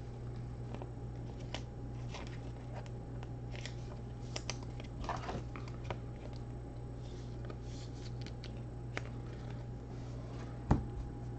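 Steady low electrical hum with faint scattered clicks and short rustles of handling, and one sharper knock near the end.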